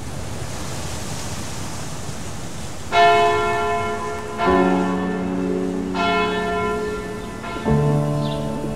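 Church bells ringing: four strikes of different pitches about a second and a half apart, each left to ring on, over a steady wash of sea surf.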